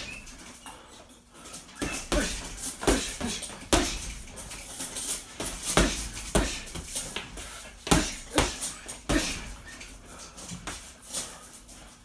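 Gloved punches landing on a hanging heavy punching bag: irregular thuds, sometimes two or three in quick succession, with short pauses between combinations.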